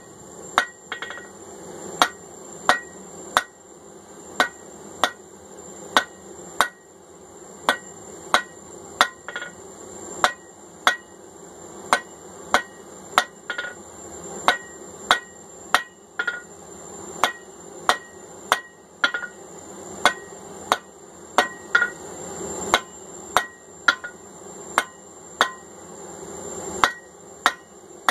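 Hand hammer forging steel on an anvil, striking at a steady pace of about one and a half blows a second, each blow with a short metallic ring. A faint steady high tone runs underneath.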